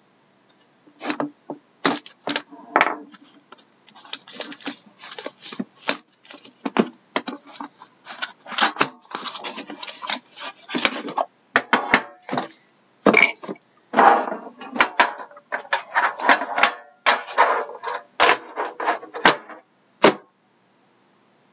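Cellophane shrink wrap on a cardboard hobby box of trading cards being slit with a hobby knife and peeled off, crinkling and crackling in irregular bursts, with the box and the tin inside it handled on a wooden desk.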